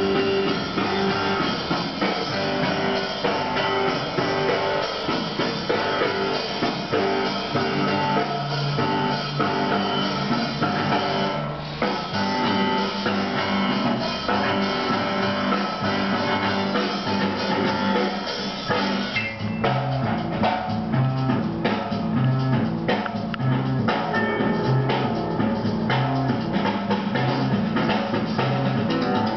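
Background rock music with drum kit, bass and guitar, at a steady level; the bass line shifts to a new repeating pattern about two-thirds of the way through.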